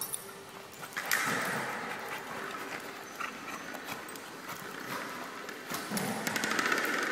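Two dogs play-fighting: rough play-growls about a second in and again near the end, with claws clicking and scrabbling on a hard floor.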